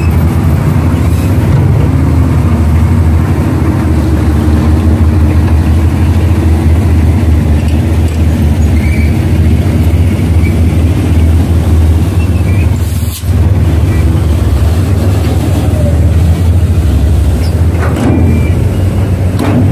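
Heavy diesel earthmoving equipment engine running steadily with a loud low drone, dropping out for an instant about two-thirds of the way through.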